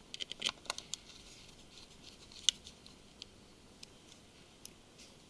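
Small Phillips screwdriver and tiny screws clicking against a Samsung Galaxy Note 2's frame as screws are picked up and set into their holes: a quick run of light clicks in the first second, one sharper click about halfway through, then a few faint ticks.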